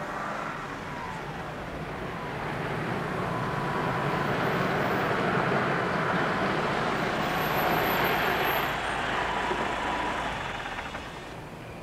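A car driving along a street and pulling over. The engine and tyre noise grows louder, then drops away as the car slows near the end.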